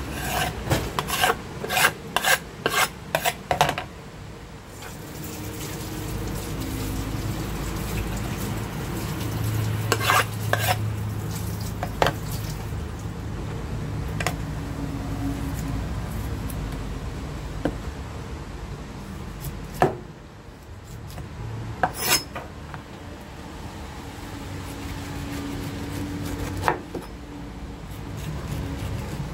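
A cleaver slicing and scraping the rind off a pineapple on a wooden cutting board: rasping strokes, with a quick run of knocks of the blade on the board in the first few seconds and single knocks scattered after.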